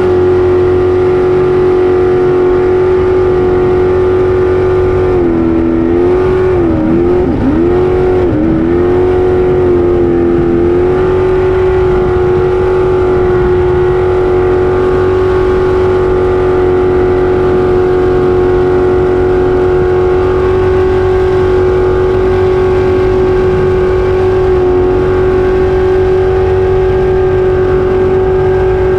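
Racing jet boat's engine running loud at high, steady revs. Its pitch dips and recovers several times between about five and ten seconds in, then holds steady.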